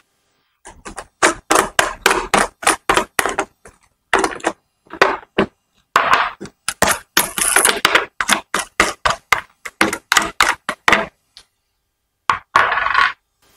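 Quick, irregular plastic clicks and knocks as the black nuts are unscrewed by hand from the mount of a child's tricycle's green plastic seat and handled, with a short pause a little before the end.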